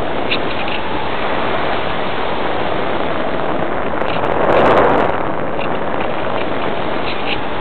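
Airflow rushing over the onboard camera of a Parkzone Radian electric glider, gliding with its motor off and folding propeller folded back. A steady rush of wind noise swells louder for about a second near the middle.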